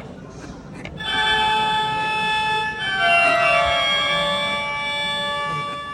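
Novelty toy sound machine playing an electronic tune of held, organ-like notes. It starts about a second in, changes notes partway through and fades near the end.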